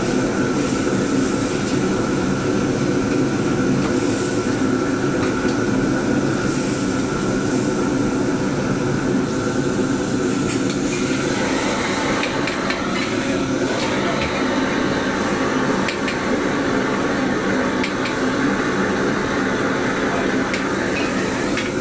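Steady loud rushing of a commercial gas wok burner running at full flame under a wok of simmering sauce, with kitchen extraction noise. A few light metal clinks of a ladle against the wok come in the second half.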